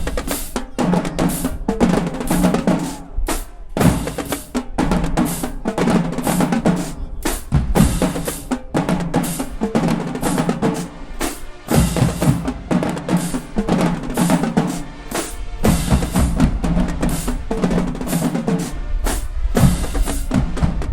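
Marching band drumline playing a cadence: dense, rapid drum strokes over a repeating figure of low pitched drums.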